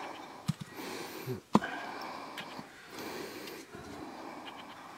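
Small plastic trap parts being handled over leaf litter: rustling with a few sharp clicks, the loudest about one and a half seconds in.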